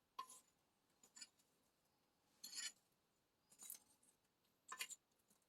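Five faint, short clicks and clinks, spaced roughly a second apart, of small hard objects being handled.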